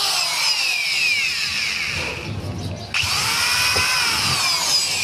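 A small electric power tool's motor whining with its pitch slowly sagging, then starting up again sharply about three seconds in and sagging once more.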